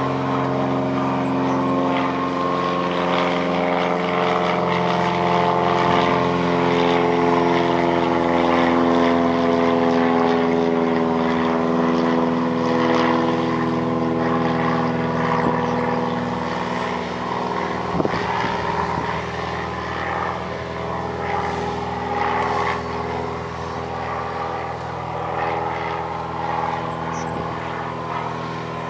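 John Deere 230C LC excavator's diesel engine running steadily under working load as the arm and bucket dig, with light clatter and one sharp knock about two-thirds of the way through.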